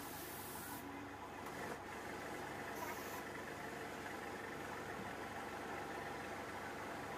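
Steady mechanical hum of a running motor, with several held tones over a low drone and no change in level.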